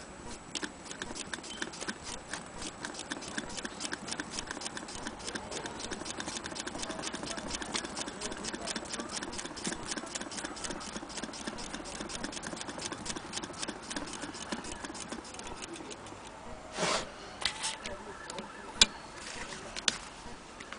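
Antique Willcox & Gibbs sewing machine running, its mechanism clicking rapidly and evenly; the clicking stops about three quarters of the way through, followed by a few separate knocks.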